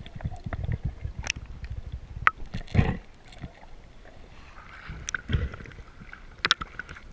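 Water sloshing and splashing, with scattered sharp clicks and a few louder knocks, as an octopus is hauled in from the sea.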